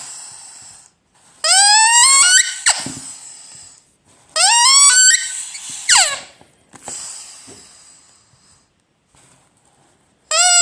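Ledraplastic rubber squeaky toy being squeezed: long squeals, each about a second, rising in pitch. Two come with a gap between, a short fainter one follows, and another starts near the end.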